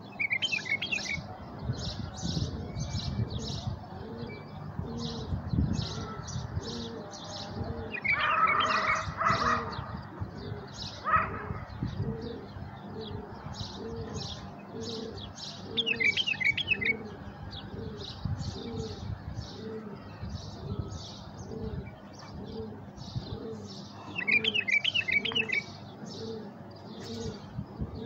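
Tame caller bulbuls, kept in a cage as decoys, singing: a steady string of short high chirps, broken a few times by louder bursts of warbling trills.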